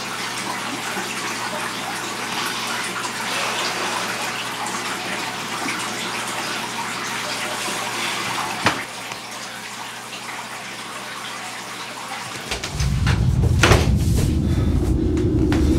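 A steady rushing noise, with a single sharp click a little past halfway. Near the end a loud low rumble sets in, with a few clicks over it.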